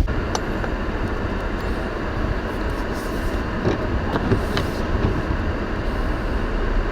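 Strong arctic outflow wind blowing steadily over the microphone in a ground blizzard, a dense even rush with a few faint clicks.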